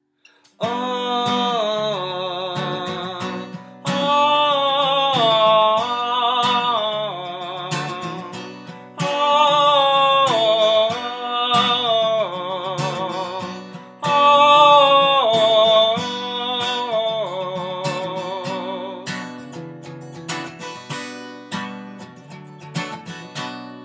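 Steel-string acoustic guitar strummed, with a man singing a wordless melody in four long phrases with vibrato. The voice drops out about 19 seconds in, leaving the guitar alone.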